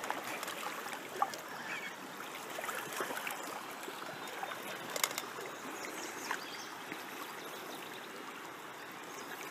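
River water flowing over shallow riffles, a steady rush with no break. Two brief clicks come through, about a second in and about halfway through.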